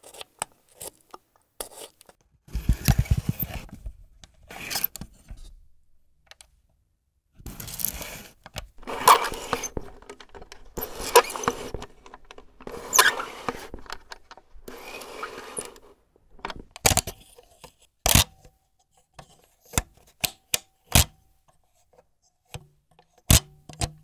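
Close-miked handling of a vintage Agfa Billy Compur folding camera: small clicks and stretches of rustling and scraping as its parts are worked, then a run of sharp, separate clicks near the end.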